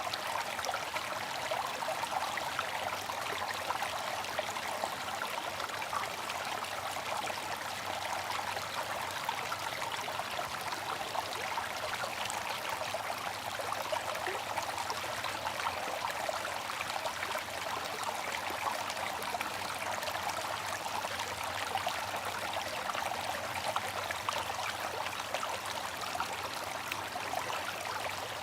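Bamboo water fountain trickling steadily, an even, unbroken rush of running water.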